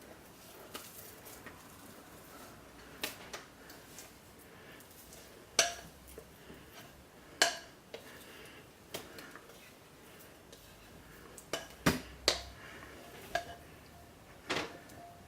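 Spatula knocking and scraping against a bowl and moulds while thick hot-process soap batter is scooped in: irregular sharp clicks and taps, a few louder knocks.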